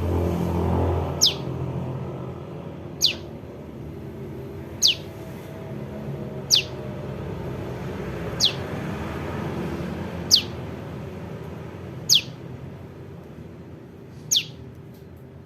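Juvenile prenjak lumut calling: a short, high call that falls steeply in pitch, repeated about every two seconds, over a low rumble.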